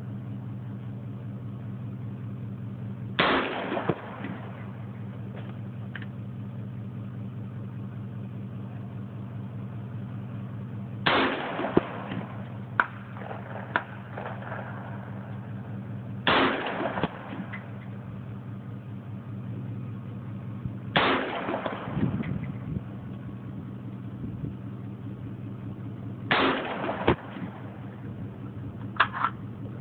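AR-15 rifle with a 20-inch E.R. Shaw barrel firing single shots, five in all, spaced about five seconds apart, each a sharp crack with a short echo.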